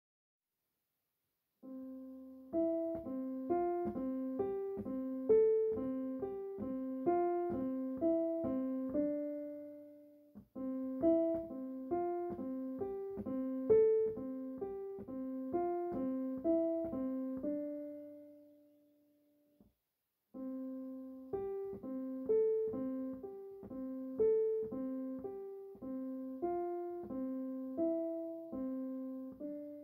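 Solo piano music: a gentle, evenly paced phrase of notes, played three times with short pauses between.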